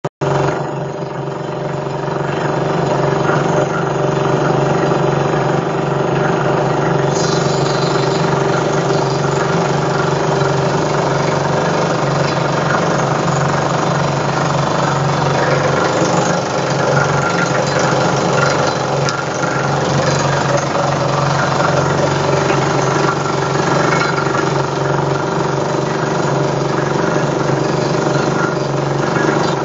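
NKR-100MPA underground pneumatic drilling rig running: a loud, steady mechanical din of rapid hammering over a constant hum.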